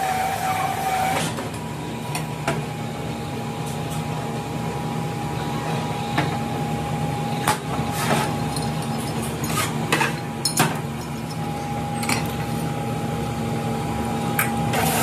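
Boring machine running with a steady drone and a steady mid-pitched whine. Scattered metallic clinks and knocks come as cast-iron brake cylinder housings are handled at the machine, about eight of them at irregular intervals.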